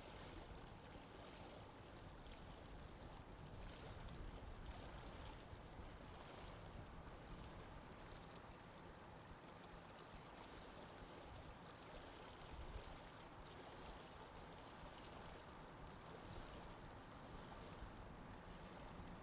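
Faint, steady lake-water ambience: water lapping gently with small splashes.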